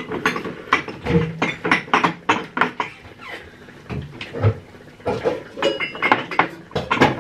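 Kitchen clatter: a quick, uneven run of knocks and clinks as pots, utensils and cupboard doors are handled, with a brief metallic ring about three quarters of the way through.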